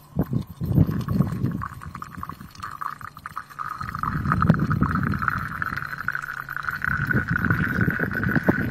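Hot water streaming from a samovar's tap into a glass teapot, the splashing turning into a tone that rises slowly as the pot fills. Intermittent low rumble underneath.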